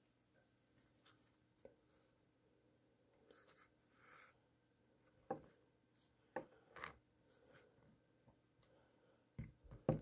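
Faint handling noise: soft rubbing, then a few light clicks and taps, the loudest near the end.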